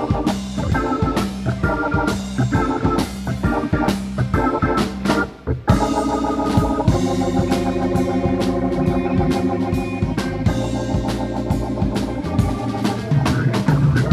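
Live rock band playing: organ-toned keyboard chords over electric guitar, bass guitar and drums, in a rough, loud recording. The music briefly drops out about five seconds in, then comes back in full.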